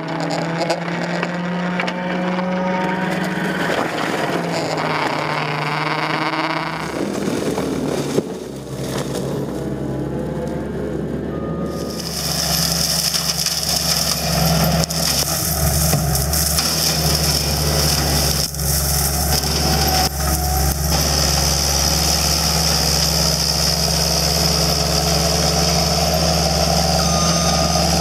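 Tracked skid steer's diesel engine running hard, driving a Brown Brontosaurus forestry mower head that shreds saw palmetto and brush. A reversing alarm beeps near the end.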